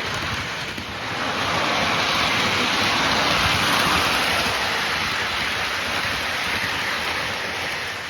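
Lionel 239 toy steam locomotive running around the track: a steady, even whirring rumble of its motor and wheels on the rails.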